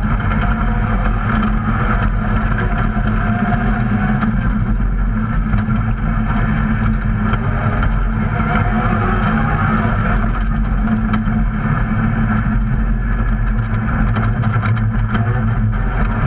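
Rally car's engine running under load, heard from inside the stripped, roll-caged cabin: a loud, steady drone mixed with road and tyre noise.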